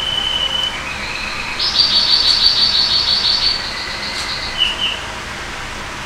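A bird singing: high whistled notes, then a fast trill lasting about three seconds, then a short double chirp.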